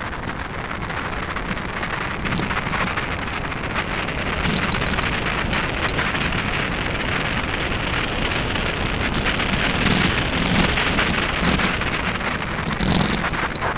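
Mountain bike tyres crunching and rattling over a gravelly dirt track at speed, with scattered sharp clicks from stones and bumps and wind buffeting the camera microphone. The noise grows louder as the ride goes on, with clusters of clicks about midway and near the end.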